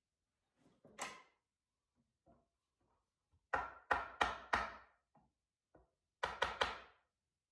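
Hammer tapping on a walnut crib frame rail: one knock, then a run of four quick strikes, then three more near the end.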